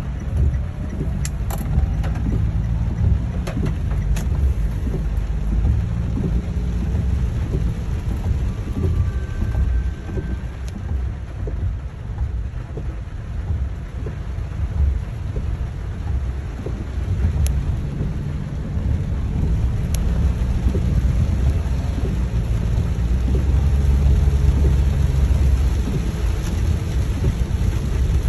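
Heavy rain falling on a car's roof and windows, heard from inside the moving car, with scattered sharp drop ticks over a low rumble of the car on the wet road.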